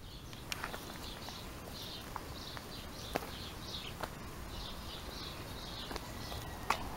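A bird chirping in a run of short high notes, about three a second, with a few light ticks among them.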